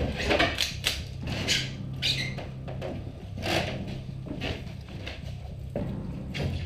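Footsteps crunching and scuffing over rubble and broken boards, with gear rustling, heard through a camera-cased GoPro microphone. A low steady hum runs underneath.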